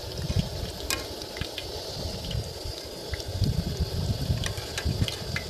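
Fish bondas deep-frying in a pan of hot oil, the oil bubbling and sizzling steadily while a wire-mesh skimmer stirs through it, with scattered light clicks.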